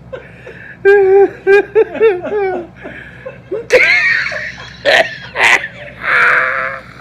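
People laughing loudly in repeated bursts.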